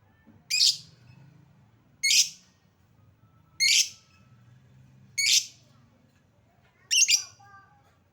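Lovebird giving short, shrill, high-pitched calls, one about every second and a half, five in all, the last a quick double call.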